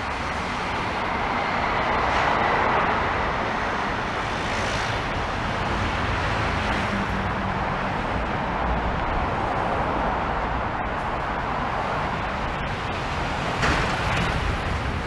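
City road traffic: a steady wash of tyre and engine noise from passing vehicles, swelling about two seconds in and again around the middle. There is a short knock near the end.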